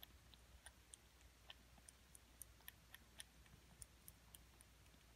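Faint, irregular clicks from a kitten's mouth as it eats or drinks with its head in a small plastic bowl, a few clicks a second.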